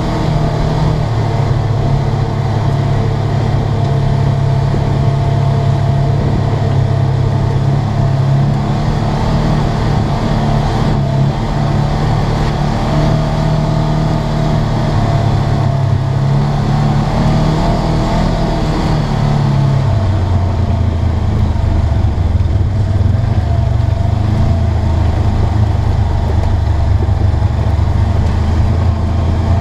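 Polaris RZR 900S side-by-side's engine running steadily under throttle on a dirt trail, heard from inside the cab. About two-thirds of the way through, the engine note drops to a lower pitch and holds there as the revs come down.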